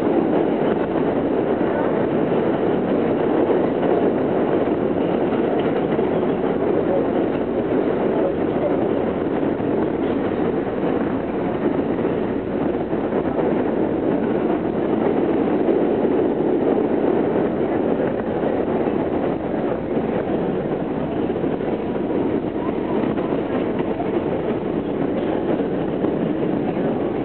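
R160B subway car with Siemens propulsion running at speed through a tunnel: a steady rumble of wheels on rail, heard from inside the car.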